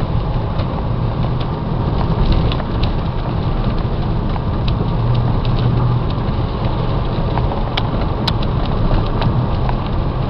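Renaultsport Mégane 225's 2.0-litre turbocharged four-cylinder engine running at a steady pitch at speed, under heavy road and wind noise. A few light ticks come near the end.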